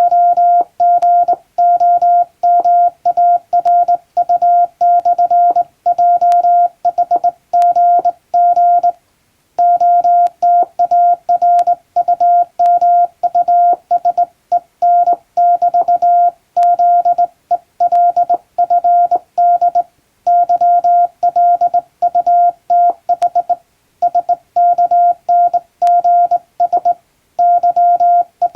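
Morse code sent by hand on a straight key: a single steady beep keyed on and off in dots and dashes, in an even rhythm of letter groups. The sending breaks off in a longer pause about nine seconds in and in a few shorter ones later.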